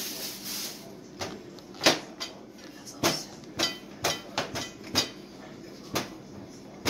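Small wooden rolling pin knocking and clacking on a metal tabletop while dough is rolled out: a string of irregular sharp knocks, about one to two a second.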